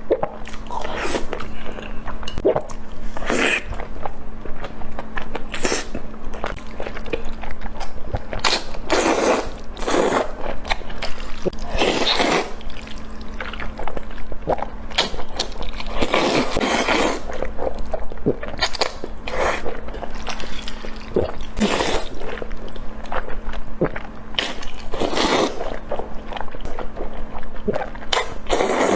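Close-miked eating sounds: irregular wet chewing, biting and mouth noises, coming in uneven bursts every second or so.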